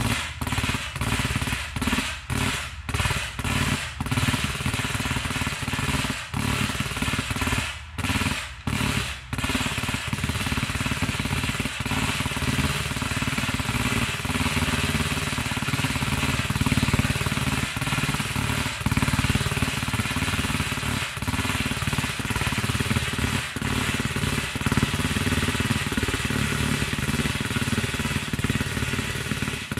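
Full-auto pellet machine gun firing a rapid rattle, in short bursts with brief pauses for about the first ten seconds, then in one long unbroken stream.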